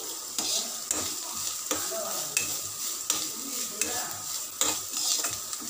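Chopped onion, grated carrot and green chilli sizzling in oil in a kadai while a spatula stirs and scrapes through them in irregular strokes.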